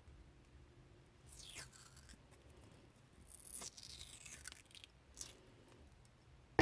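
Gaffer tape pulled off the roll in three short ripping rasps, about a second and a half, three and a half seconds, and five seconds in.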